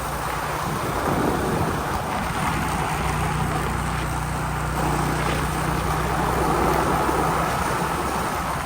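Honda XRM underbone motorcycle's single-cylinder four-stroke engine running steadily while riding, with wind and road noise.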